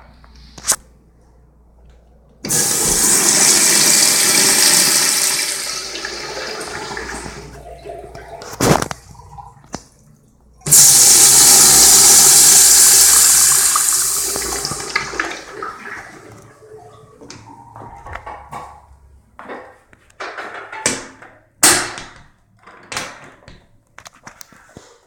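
Crane urinals flushed twice by their chrome flush valves: each time a sudden loud rush of water that holds for a few seconds and then fades as the valve closes. Scattered clicks and knocks follow in the last several seconds.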